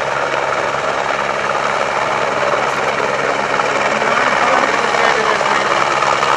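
Light single-engine helicopter's rotor and turbine running as it comes in low to land, growing steadily louder as it approaches.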